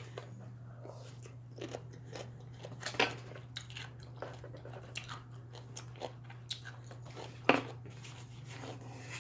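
A person crunching and chewing bread and butter pickle chips close to the microphone: irregular crisp crunches, the loudest about 3 seconds and 7.5 seconds in.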